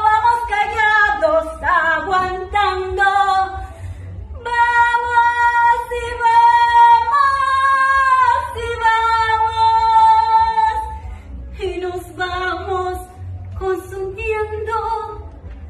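A woman singing without accompaniment. Short phrases give way about four seconds in to long held notes that run until about eleven seconds, then shorter phrases return. A steady low hum runs underneath.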